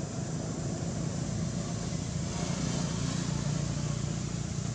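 Road traffic on the nearby street: a steady motor-vehicle hum that swells a little past the middle as a vehicle goes by.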